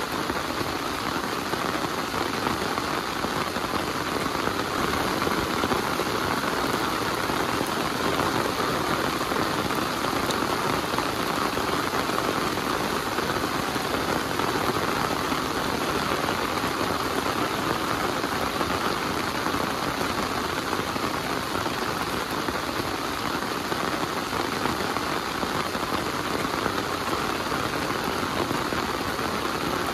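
Heavy rain falling steadily, a dense even patter of drops on the ground and surrounding surfaces with no break or change.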